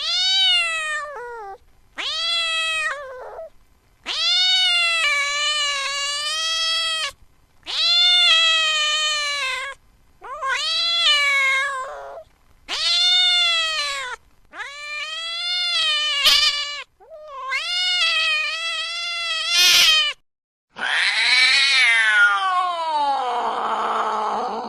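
Cat yowling in about nine long, drawn-out calls of one to three seconds each, the last one sliding down in pitch: angry caterwauling.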